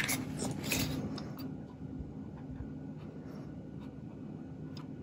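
Rubbing strokes on the black plastic body of a Kodak Instamatic 300 camera as it is polished, dying away about a second in; after that only a faint low hum.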